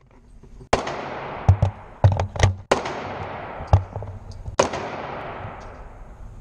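AR-15 rifle fired through a Franklin Armory binary trigger in an indoor range. Four loud shots each ring out in a long echo, and several shorter, duller bangs come between them.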